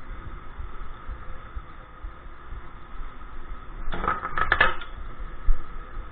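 A short flurry of metal clinks and clatter about four seconds in, from 46RE automatic-transmission internals being pulled out of the case during teardown, over a steady background hum.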